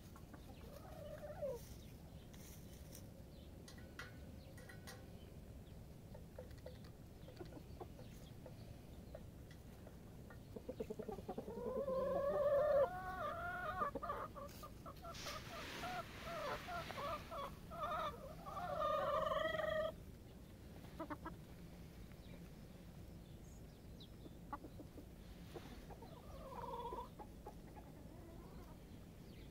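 Chickens clucking and calling. The calls are sparse and faint at first, then come in a busy run of clucks and drawn-out calls for about ten seconds in the middle, with a short burst of noise partway through the run. A few single clucks follow near the end.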